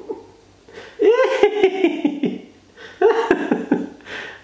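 A person laughing in two high-pitched bursts, the second shorter.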